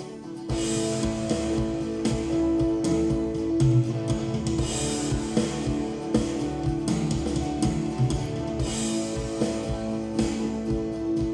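Recorded band music, guitar over a drum kit, played back from a multitrack recording for a virtual sound check through a digital mixer.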